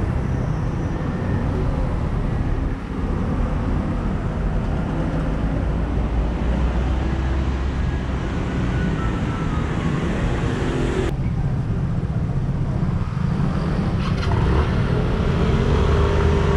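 City street traffic: a steady mix of car and motor scooter engines passing, growing louder near the end. The sound changes abruptly about eleven seconds in.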